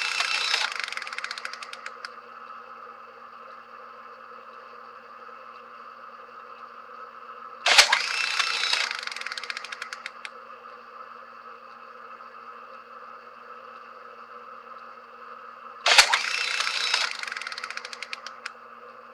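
Camera shutter firing with a sharp click, then about a second and a half of rapid mechanical whirring as it winds on. This happens twice, about 8 s apart, after the tail end of a similar cycle at the start, over a steady electrical hum.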